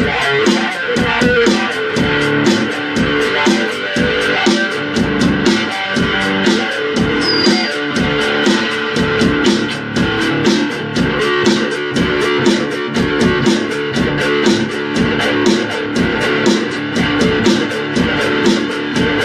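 Guitar music: fast, rhythmic plucked or strummed guitar notes with a bass line, playing without a break.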